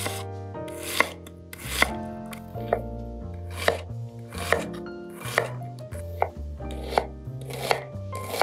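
Santoku knife chopping an onion on a wooden cutting board: evenly paced sharp knocks of the blade on the board, a little under a second apart.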